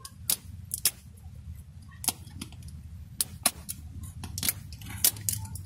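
Irregular sharp plastic clicks and snaps as fingers pick and pry at the seam of a Pikmi Pops plastic ball case, which is hard to open.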